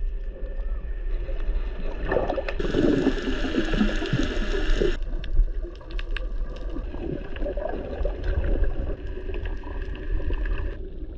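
Muffled underwater sound picked up by a submerged action camera: a steady low rumble with irregular gurgling and sloshing of water. The sound gets busier and brighter for a couple of seconds near the start.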